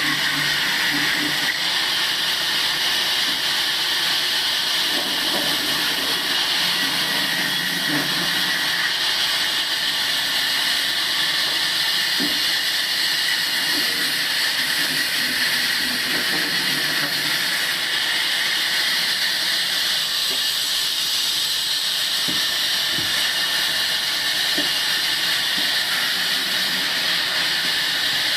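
Table sawmill machine running steadily while cutting wood: a loud, even, high hiss with a steady whine, unbroken throughout.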